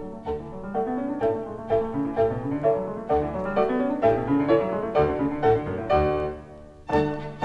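Classical piano music, notes struck one after another in a lively, steady rhythm. It dips briefly a little before the end, then a new phrase begins.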